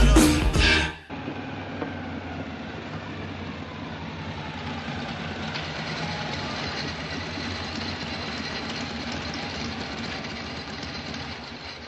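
Rock music cuts off about a second in. Then two Harley-Davidson panhead V-twin chopper motorcycles run steadily as they ride up and pull in, and the engine sound dies away near the end.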